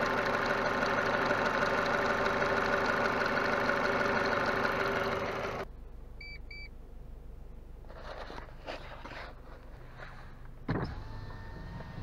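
Car engine running steadily under the bonnet with its electric radiator fan not spinning, cutting off about five and a half seconds in. Then two short high beeps of the coolant-temperature warning chime, followed by a few clicks, a knock and a faint steady whine.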